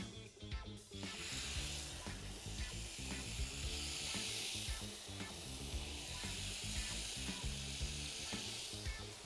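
Marinated chicken breasts sizzling on a hot, oiled, ridged grill pan as they are laid down, the sizzle starting suddenly about a second in and then running steadily.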